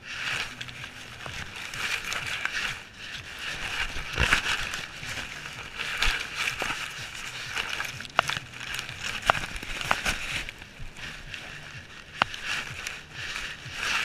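Scraping and rustling on a dog-mounted GoPro as the dog moves and noses about in grass, with grass brushing the housing and irregular sharp clicks and knocks.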